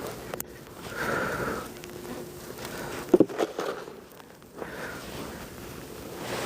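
Snow shovel scraping and pushing snow over pavement, with a sharp knock about three seconds in.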